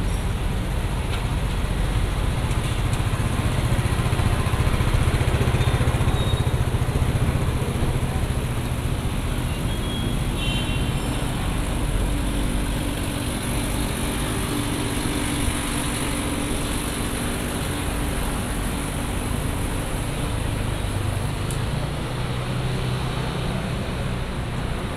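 City street traffic: car and motorcycle engines running and passing, loudest about four to seven seconds in, with a steady engine hum through the middle.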